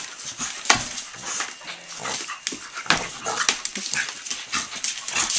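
A pit bull and a puppy play-fighting over a slipper on a hardwood floor: dog vocal sounds mixed with many short sharp clicks and scuffles from their tussle.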